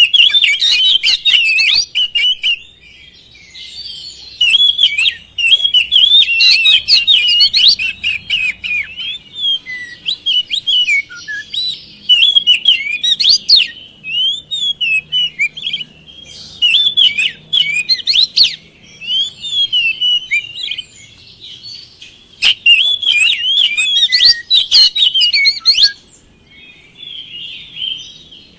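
Oriental magpie-robin (kacer) singing a long, varied song of rapid whistles and harsh chattering notes, in loud bursts a few seconds long with quieter twittering between.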